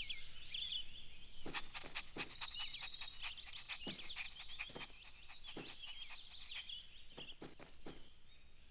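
Soft birdsong ambience, many small birds chirping and trilling, with a scatter of faint light clicks.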